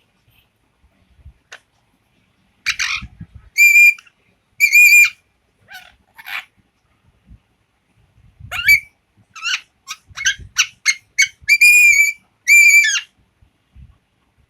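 Pet parrot whistling on command. A series of loud, shrill whistles: a few held steady notes, a quick run of short chirpy notes in the middle, then more held whistles near the end.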